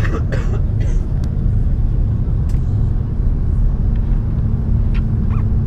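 Airbus A330 cabin noise heard from a window seat: a steady low rumble of the engines and airflow with a faint steady hum, while the aircraft is on the ground before takeoff. A few faint clicks sound over it.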